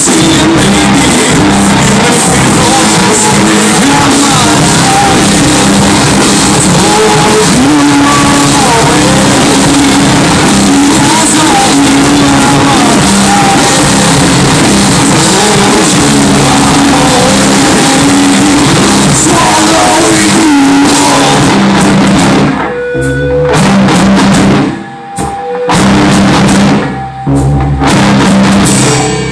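A rock band playing live and loud: electric guitars, bass and drum kit, with a melody line weaving over the chords. Near the end the band plays a few sudden stop-start hits with short gaps between them.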